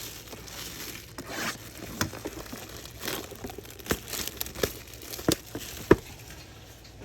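Plastic wrapping on trading card boxes and packs being crinkled and torn open, with several sharp clicks and taps from handling the packaging.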